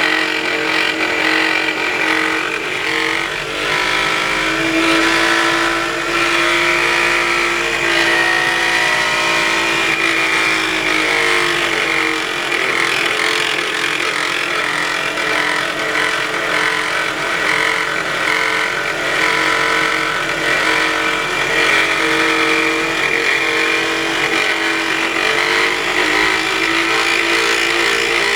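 Toyota Noah ZRR70's 3ZR four-cylinder engine running with a tremendous whining drone made of several tones, its pitch drifting slowly up and down. It is an abnormal engine noise, loud enough that the owner feared the engine was damaged.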